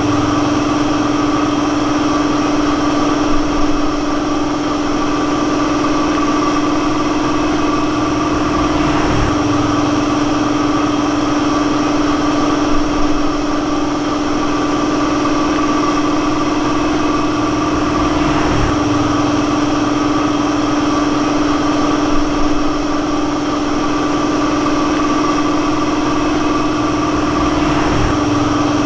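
An engine idling steadily at an even speed, with a few light knocks.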